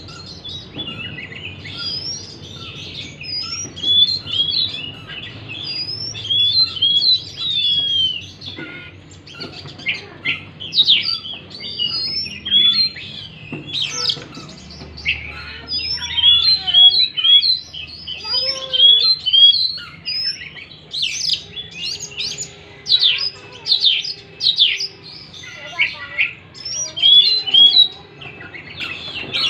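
Oriental magpie-robin (kacer) singing: a rapid, varied run of clear whistles, slurred chirps and trills.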